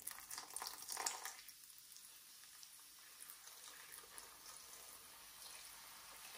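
Cola poured from a glass mug onto chopped vegetables in a slow cooker: a faint pouring and splashing of liquid, loudest in the first second and a half, then fainter.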